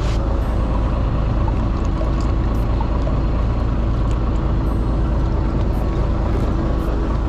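Fishing boat's engine running steadily with a low rumble, with a few short knocks from handling on deck.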